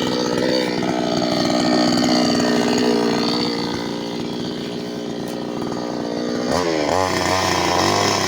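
New West 598X two-stroke petrol chainsaw running steadily, then revved up to a higher pitch about six and a half seconds in.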